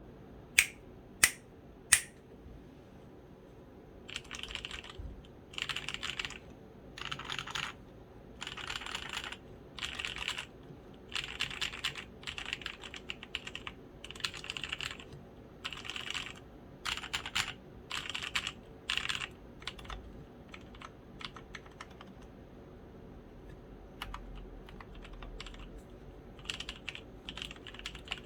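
Typing on a custom 60% mechanical keyboard with lubed Kailh Polia tactile switches, pudding keycaps, an acrylic case and a copper plate. Three sharp, loud clicks come in the first two seconds, then runs of fast typing in bursts of a second or two, thinning out past the middle and picking up again near the end.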